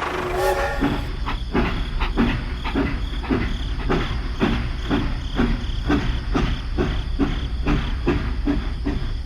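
A small machine running with a steady low hum and regular clacking, about two and a half clacks a second, from about a second in.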